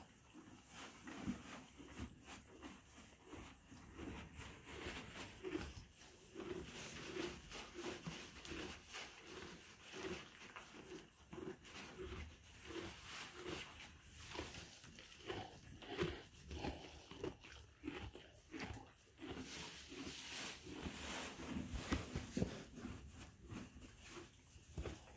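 Miniature donkey chewing hay close up: steady, rhythmic munching with the crunch of dry stalks.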